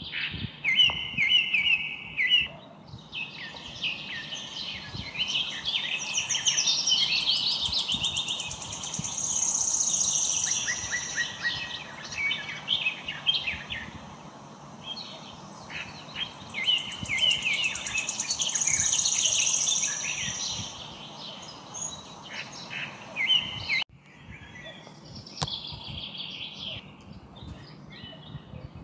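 Many small birds chirping and calling at once in a dense, high-pitched chorus. The same stretch of chorus comes round twice, and it breaks off abruptly about four-fifths of the way through before going on more quietly.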